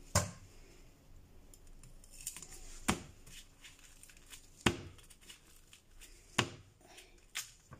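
Large kitchen knife chopping through a sweet corn cob onto a cutting board: about five sharp chops, one to two seconds apart.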